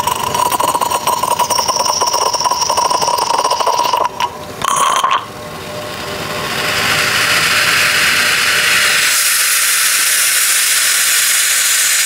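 Odyssey Argos lever espresso machine pulling a test shot: a steady buzzing tone with hiss for about four seconds, a brief break, then a hiss that builds from about six seconds in and holds steady and high.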